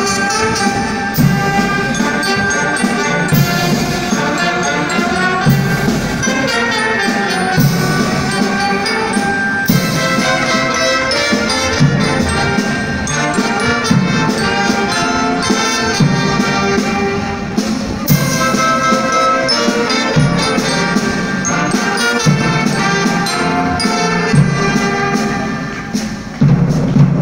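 Youth brass band of trumpets, saxophones and tubas playing a tune together; the sound dips briefly near the end, then comes back loud.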